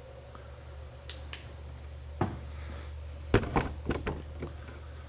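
A scattered series of sharp, light clicks and knocks from handling, a cluster of them about two-thirds of the way in, over a steady low hum.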